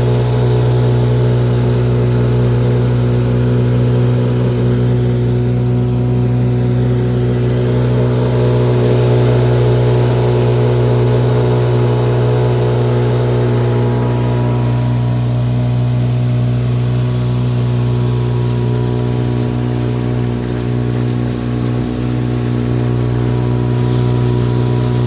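A small passenger boat's motor running steadily under way, a continuous hum at an even pitch.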